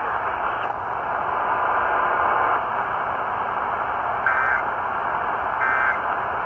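Steady radio-receiver static hiss. Near the end come three short, chirpy data bursts about 1.3 s apart, each a warble between two tones: the Emergency Alert System's SAME digital end-of-message signal that closes a broadcast alert.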